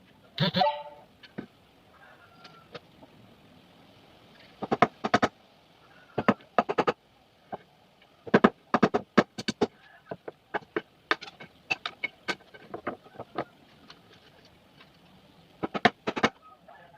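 Sharp knocks on wood, in quick clusters of two to five blows, like hammering. About half a second in there is one short pitched call, like a chicken's cluck.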